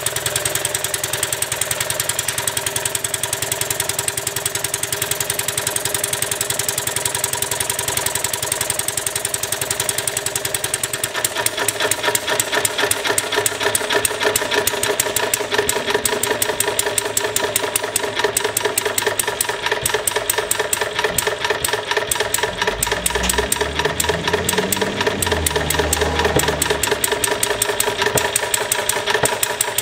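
Small homemade model internal-combustion engine built from plumbing parts, running fast on a simple homemade carburetor with a rapid, even firing beat. About a third of the way in, while the carburetor is adjusted by hand, the firing turns louder and sharper.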